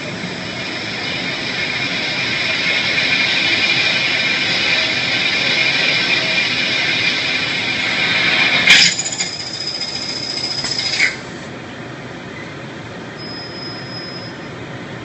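CNC plasma cutter cutting metal: a loud hiss with a high whine that grows louder, then cuts off suddenly with a click about nine seconds in. A quieter hiss and thin high tone run on for about two seconds before they stop too.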